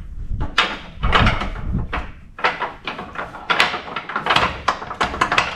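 Irregular knocks, clicks and rattles of parts being handled and fitted together while a miter saw stand is assembled.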